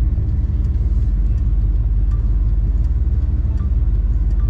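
Pickup truck engine running steadily, heard from inside the cab as a constant low drone.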